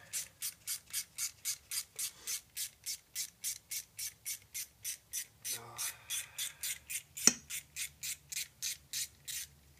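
Rapid, even metal scraping strokes, about four a second, as the second connecting rod bolt is worked out of the LS connecting rod. One sharp knock comes about seven seconds in.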